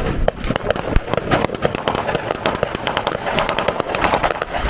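Blank small-arms gunfire in rapid, irregular volleys: many sharp overlapping cracks, several a second.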